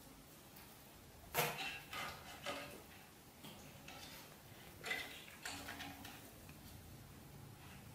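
Cats' paws and claws on a wooden floor: a few light taps and scuffles as the cats and kittens move and play. The loudest tap comes about a second and a half in, with a second cluster around five seconds.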